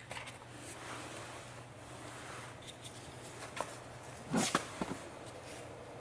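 Small plastic and metal clicks and rattles as a door lock actuator is handled and fitted onto a car door latch, with a cluster of sharper clicks about four and a half seconds in. A faint steady low hum sits underneath.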